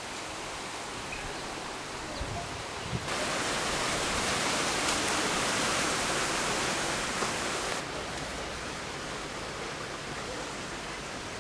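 Steady rushing outdoor noise with no pitch. About three seconds in it turns louder and brighter, then drops back abruptly about five seconds later.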